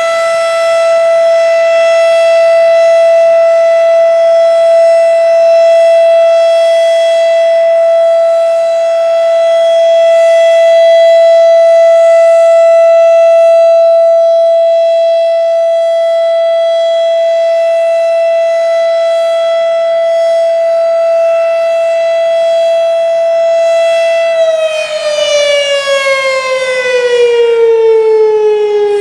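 Federal Signal RSH-10A Thunderbeam outdoor warning siren sounding its steady single-tone Alert, slowly swelling and fading in loudness. Near the end the pitch starts to fall as the siren winds down at the close of the three-minute alert cycle.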